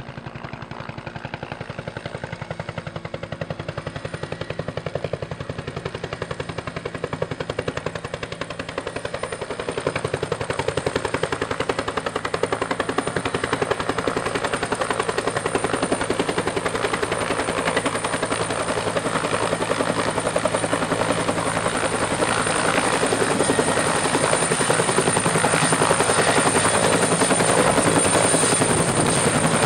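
Helicopter approaching and coming in to hover over a ship's helideck: rapid rotor chop with a steady high turbine whine, growing steadily louder as it closes in.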